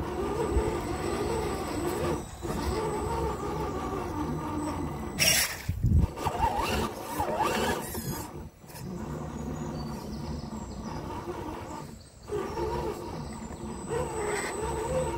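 Electric motor and gearbox of a scale RC crawler whining as it drives slowly through mud, the pitch rising and falling with the throttle and dropping away briefly three times. A short, loud rush of noise comes about five seconds in.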